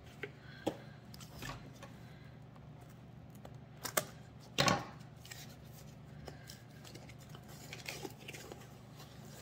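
Paper and cardboard packaging rustling and crinkling as items are unwrapped and handled by hand, with two louder, sharper rustles about four to five seconds in.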